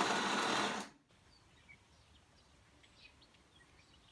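DeLonghi Magnifica S bean-to-cup espresso machine running as it dispenses coffee into a mug: a steady mechanical hum with a thin high tone that cuts off abruptly about a second in. Faint, scattered bird chirps follow.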